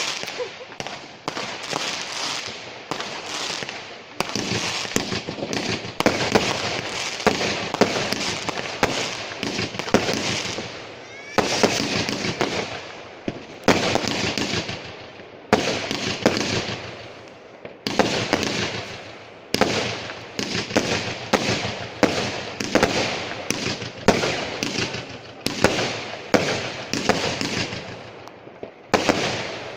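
New Year's Eve fireworks going off in quick succession: sharp bangs and crackling decays, a new burst every second or two. The last bang comes a little before the end.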